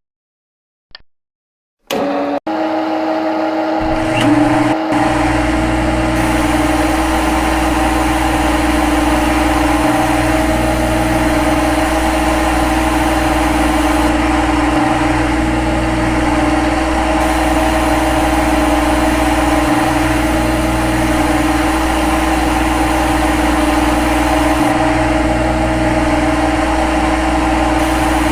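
A steady machine running sound with a constant hum and a low rumble, starting suddenly about two seconds in after a faint click.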